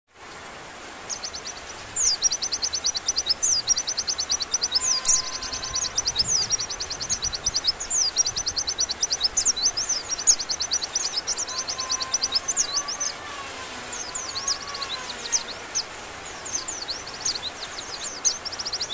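Velvet-fronted nuthatch calling: rapid, high trills of sharp chipping notes in repeated bursts, starting about a second in.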